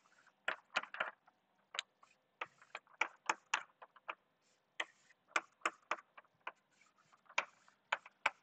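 Chalk writing on a blackboard: irregular sharp taps as the chalk hits the board, mixed with short scratchy strokes, a few every second.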